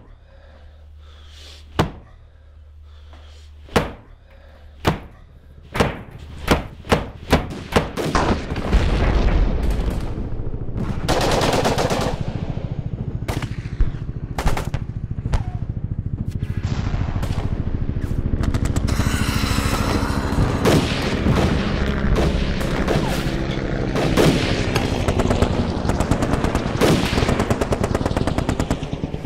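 Sharp single shots or blows, a second or two apart and then quickening, give way about eight seconds in to dense, rapid rifle gunfire over a steady low rumble.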